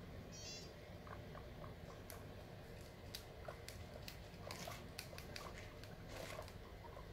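Guinea pigs chewing, faint irregular crunching and clicking as they nibble dry pellets and corn husk, with a brief high squeak about half a second in.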